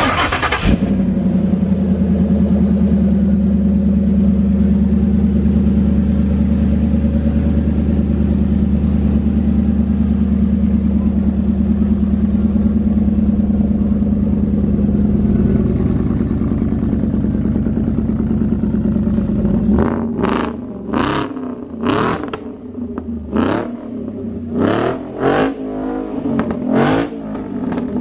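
Ford 5.0 Coyote V8 in an old-school Ford F-series pickup, idling steadily. About twenty seconds in it is revved in a quick series of about eight throttle blips.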